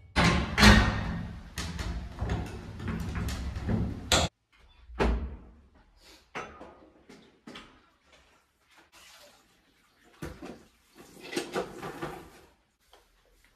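Household cleaning clatter: a door, a mop and a bucket handled and knocked while a floor is mopped. The first four seconds are loud and busy; after that come sparse knocks and clicks, with a busier patch near the end.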